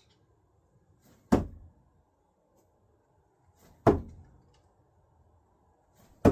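Three thrown screwdrivers striking the target one after another, about two and a half seconds apart: each a sharp knock with a short low ring after it.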